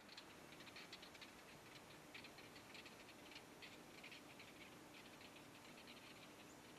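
Near silence: faint scattered ticks and a faint steady low hum.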